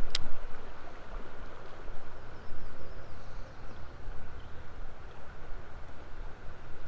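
Steady rush of flowing river water with wind rumble on the microphone. A single sharp click just as it begins, from the baitcasting reel being handled.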